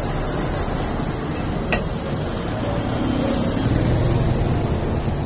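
Steady background rumble and hum of a busy street stall, with a metal spatula clicking once on the iron dosa griddle about two seconds in as the dosa is cut.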